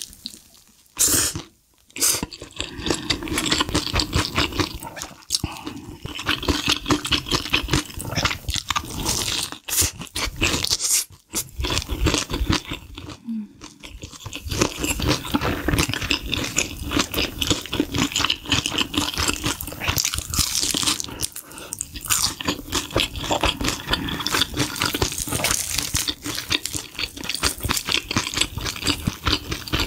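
Close-miked crunching and chewing of sauce-coated fried chicken with noodles wrapped around it, with dense crackly bites and brief pauses between mouthfuls.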